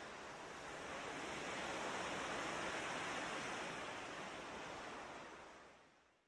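Ocean surf washing onto a beach: a steady wash of water that swells about two seconds in, then fades out near the end.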